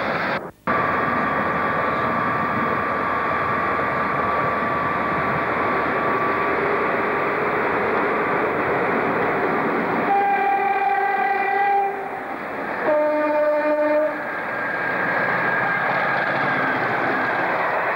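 Diesel locomotive approaching and running past, its engine and wheels making a steady noise, sounding its two-tone horn about ten seconds in: a higher note for about two seconds, then a lower note a second later.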